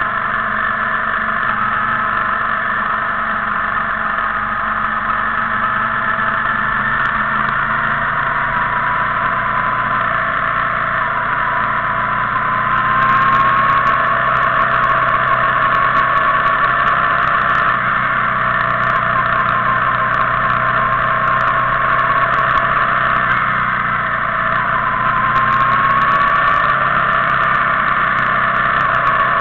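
Motorcycle engines running steadily at low road speed in a group ride, the pitch and level rising a little about halfway through and again near the end as they pick up speed.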